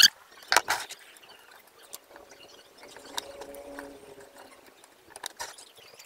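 Wires and an aluminium amplifier case being handled as the wiring is tucked into the case: scattered light clicks and rattles, with a sharp ringing metallic clank right at the start.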